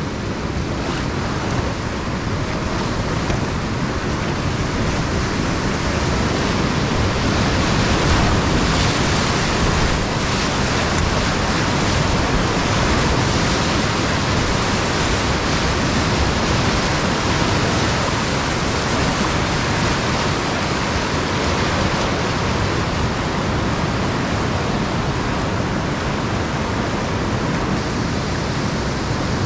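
Whitewater rapid rushing steadily around a raft, a little louder about a third of the way in as the boat runs through the waves.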